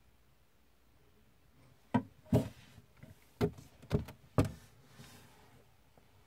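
Handling noise on the recording device: five sharp knocks and thumps, the first about two seconds in and the rest over the next two and a half seconds, as the camera is moved and the recording is stopped.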